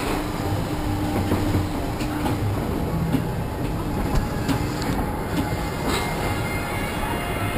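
Bobsled roller coaster car rolling along its track, heard from on board: a steady rumble with scattered clicks and rattles.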